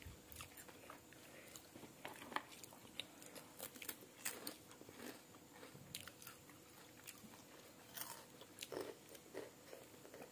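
A child chewing cheese-flavoured snack sticks with her mouth, faint irregular crunches and small crackling clicks.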